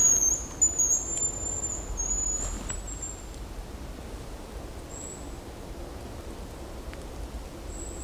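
High, thin hazel grouse whistling: one long, piercing whistle with a few breaks and small rises, ending in short notes by about three seconds in. Fainter short whistles follow about five seconds in and near the end.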